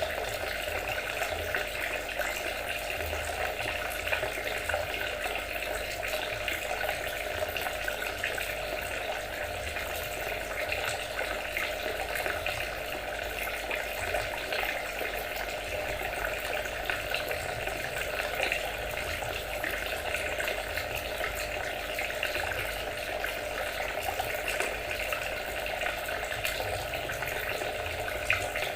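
Water trickling and splashing steadily, with no pauses or changes.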